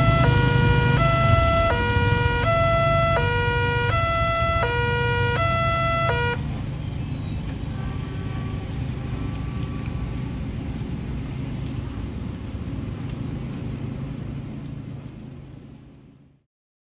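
Railway level-crossing warning alarm from a loudspeaker horn on the crossing post: an electronic two-tone alternating low and high about every half second. It stops about six seconds in as the barrier arms lift and the crossing clears. A low steady rumble runs under it and after, fading out near the end.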